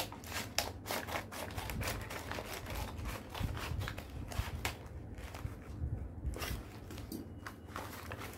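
Scissors cutting through a brown paper mailer bag: a run of short, irregular crisp snips with paper rustling. Near the end, the paper crinkles as the cut bag is pulled open.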